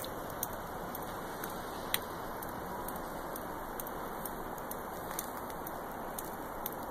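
Steady low background hiss with a few faint, scattered ticks and one sharper click about two seconds in.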